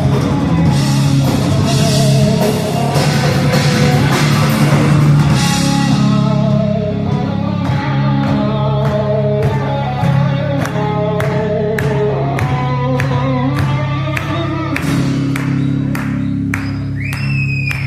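Live rock band playing with singing: drums, guitars and bass. A dense wash of cymbals for about the first six seconds, then a sparser passage with a steady beat.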